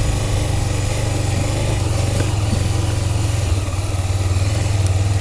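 Honda CBX 250 Twister's single-cylinder four-stroke engine running steadily at low revs.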